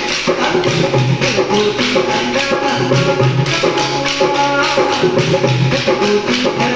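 Music with a melody over a quick, steady rhythm of sharp wooden clicks: kolatam sticks struck together in time by dancers.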